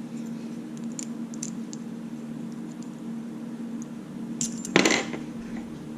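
Small metallic clicks and ticks of a screwdriver working at the soldered-on metal shield of a small circuit board. A louder burst of scraping clicks comes about four and a half seconds in. A steady low hum runs underneath.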